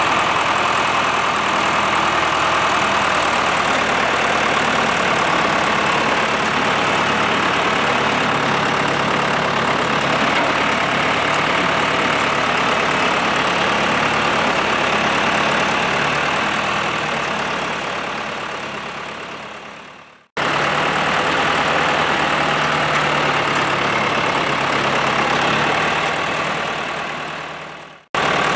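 John Deere 2750 diesel tractor engine running steadily. The sound fades away and cuts off to silence about twenty seconds in, then starts again and fades and cuts off once more near the end.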